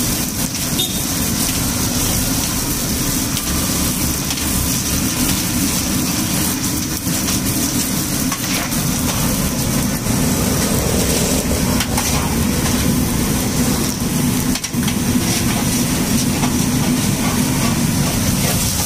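Small puris deep-frying in a large kadai of hot oil: a steady sizzle over a constant low rumble, with a few sharp knocks.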